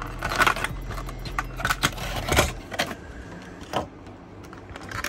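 Clear plastic blister packaging clicking and crackling as it is handled, with the clicks thinning out after about two and a half seconds and a single sharper tap near four seconds as it is set down.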